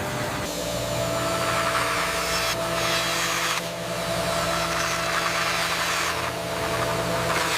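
Woodworking machinery running steadily: a constant mechanical hum with a steady tone under a high hiss that grows and eases a few times.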